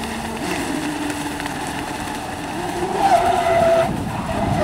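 Electric motor of a large-scale RC race boat (540 kv, on a 10-cell LiPo) whining as the boat runs at speed, with the hiss of water spray from the hull. The pitch shifts with throttle, and the sound gets louder with a higher whine about three seconds in.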